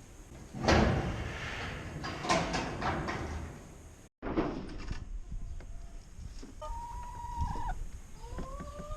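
A loud, noisy clatter starts sharply just under a second in and lasts about three seconds. After it, a rooster crows twice in the second half, each crow about a second long, the second rising at its start.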